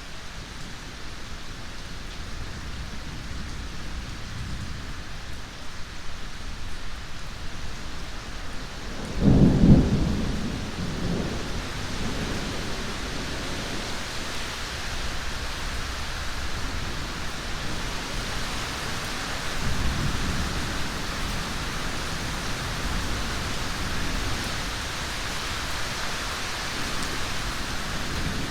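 Steady heavy rain with a sharp thunderclap about nine seconds in that rumbles off over the next few seconds, then a fainter roll of thunder later on.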